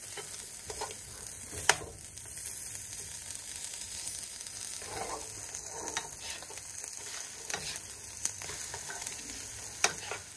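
Steak pieces and scrambled eggs sizzling in a nonstick frying pan while a spatula stirs them, with a steady hiss and a few sharp clicks of the spatula against the pan.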